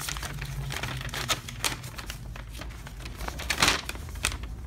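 Paper instruction booklets being handled: rustling and crinkling with light clicks, and one louder rustle about three and a half seconds in.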